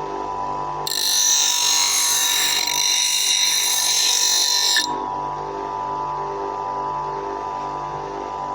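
Bench grinder motor running with a steady hum. From about one second in until nearly five seconds, a scissor blade is held against the spinning wheel, making a loud grinding noise. Then the motor runs on alone.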